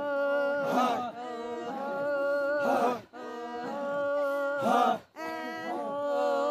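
Intro music of chanted singing in long held notes, the phrases breaking off and starting again about every two seconds.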